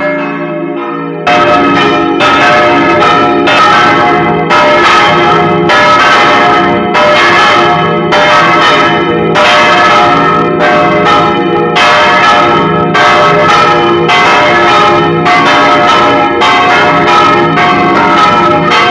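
Several large church bells swung by hand on ropes in a belfry, rung all together (koottamani) in a loud, continuous peal of overlapping strokes. The ringing jumps up in loudness about a second in.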